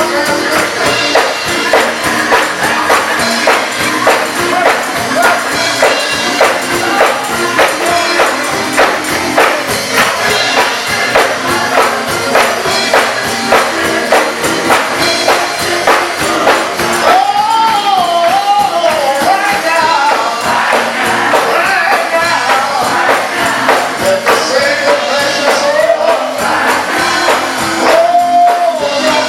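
Live gospel music: a choir and band playing to a steady, fast beat. A lead voice rises and falls above the choir from about halfway through, and again near the end.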